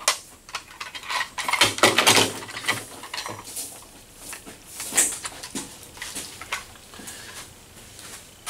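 Handling noises as a handheld fish scale's hook is worked into a bowfin's mouth on a table and the fish is lifted: irregular clicks, scrapes and rustles, busiest about two seconds in, with a sharp click about five seconds in.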